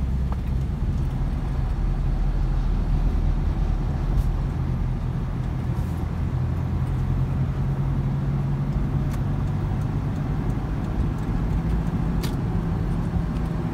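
Steady engine and tyre rumble inside a moving car's cabin, with a few faint clicks.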